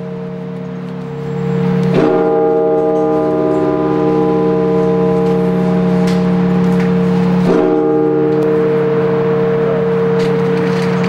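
Orthodox church bell rung as a blagovest: single measured strikes, about two seconds in and again some five and a half seconds later, each leaving a long, steady ring that carries on until the next stroke.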